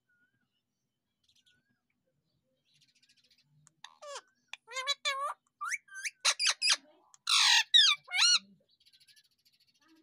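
Indian ringneck parakeet calling: after a few quiet seconds, a quick run of short whistled calls that slide up and down in pitch, then a louder harsh squawk and a couple of wavering notes.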